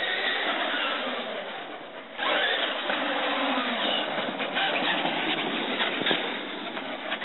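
Traxxas E-Maxx RC monster truck with a Feigao 7XL brushless motor on 3S LiPo, its electric motor whine rising and falling as it drives on asphalt. The sound dips about two seconds in, then picks up sharply again.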